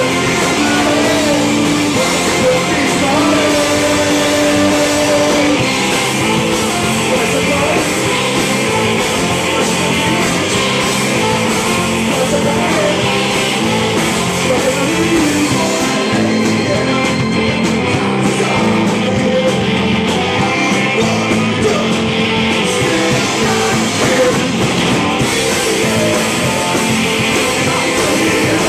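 Live rock band playing loud: electric guitar, bass guitar, keytar and drums, with a man singing. The keytar holds long steady synth notes over the first few seconds.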